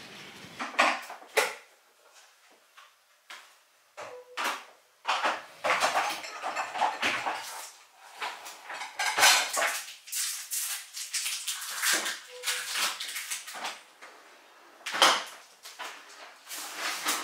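Dishes, glasses and cutlery clinking and clattering in irregular bursts as a dishwasher is emptied, with sharp knocks in between.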